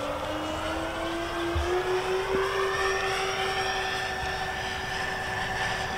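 Twin electric motors and propellers of a 63-inch P-38 Lightning RC model plane whining in flight overhead. The pitch climbs a little over the first two seconds, then holds steady.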